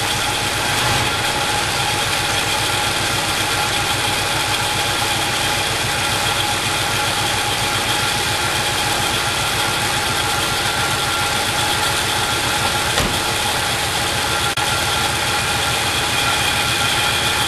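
1967 Oldsmobile Delmont 88's 425 cubic-inch V8 with a two-barrel carburettor idling steadily, still warming up after a cold start in freezing weather.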